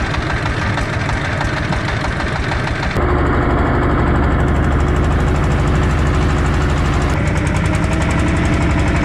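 Small fishing boat's engine running steadily; its tone and loudness shift abruptly about three seconds in and again about seven seconds in.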